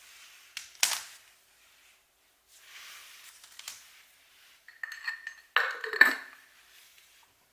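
Crockery or glassware being handled: a sharp knock about a second in, then a few light clinks with a short ringing tone and a louder clatter a little past halfway.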